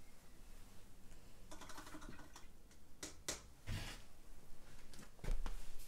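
Sheets of paper being handled and set down on a table: rustling with a few light knocks and taps.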